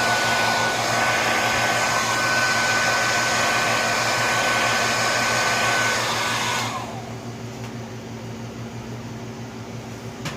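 Hand-held hair dryer blowing steadily with a thin high whine, then switched off about six and a half seconds in, leaving a low hum.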